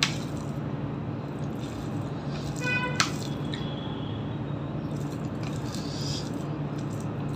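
A hand squishes and mixes rice with soft potatoes and mutton fat curry on a steel plate, over a steady low hum. About three seconds in, a short high-pitched squeak ends in a sharp click.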